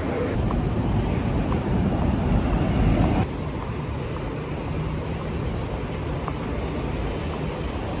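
City street ambience: wind rumbling on a phone microphone mixed with traffic noise. About three seconds in it changes abruptly to a steadier hum of passing cars.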